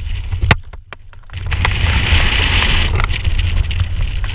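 Wind rushing over a skydiver's camera microphone under an open parachute canopy, dropping off for about a second near the start, with a few light clicks.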